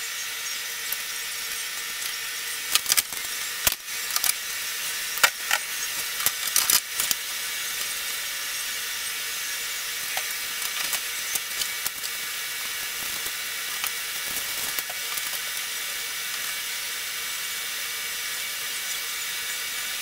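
Scattered clicks and knocks of hands handling tools, wires and plastic parts in an open washing-machine control panel, in two bunches, over a steady hiss with a faint hum.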